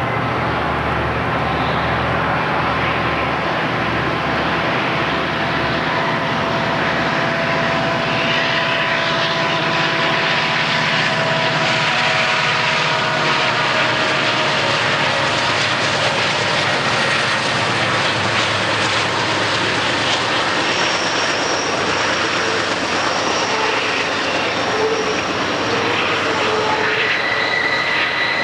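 EMD diesel locomotives running close by, with a deep engine rumble and a whine that glides slightly in pitch. In the second half a long train's steel wheels roll past on the curve, with thin high-pitched flange squeal near the end.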